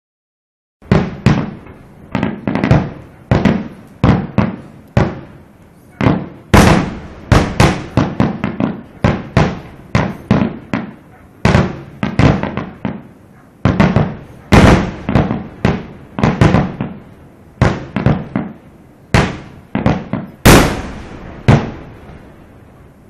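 Fireworks display: aerial shells bursting in quick succession, sharp bangs about one to two a second, each dying away quickly. It begins after a brief moment of dead silence.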